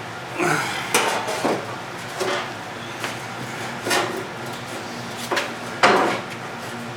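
Loose metal bolts and parts clinking and clattering as they are handled and sorted through, with a few sharper metal clanks, the loudest near the end.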